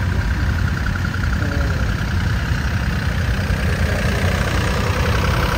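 Tractor engine running steadily at low revs, a continuous low-pitched sound with a fast, even firing beat.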